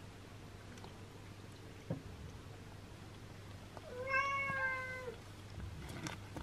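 A six-day-old kitten gives one high meow, about a second long and falling slightly at the end, while its mother licks it clean. A soft tap comes a couple of seconds before it.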